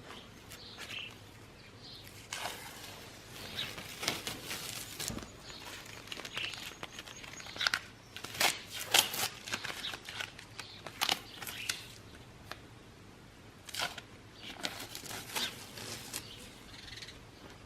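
Tape being peeled off a freshly painted anvil: irregular short ripping and crinkling sounds, some louder than others.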